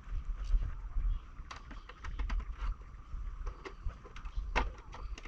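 Irregular clicks and knocks of an air conditioner's plastic casing and parts being handled, with a sharper knock near the end, over a low rumble.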